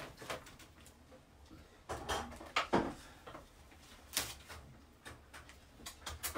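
A handful of scattered sharp clicks and knocks from parts being handled and fitted at the top of an aquarium as its air bar is screwed back into position.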